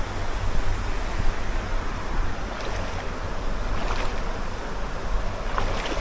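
Steady rush of stream water around a person wading in it, with a low rumble of wind on the microphone.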